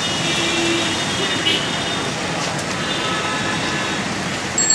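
Steady hiss of heavy rain on a wet city street, mixed with road traffic and tyres on the wet road. A few short pitched tones rise above it near the start and about three seconds in.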